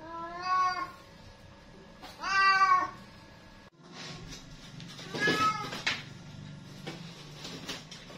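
Domestic cat meowing: two clear meows, the second about two seconds in and the loudest, then a rougher meow about five seconds in.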